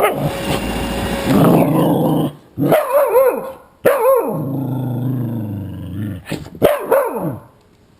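Dog barking and growling at an iRobot Roomba robot vacuum: several short arching barks with a longer falling growl between them. The Roomba's steady motor whine cuts off about a second in.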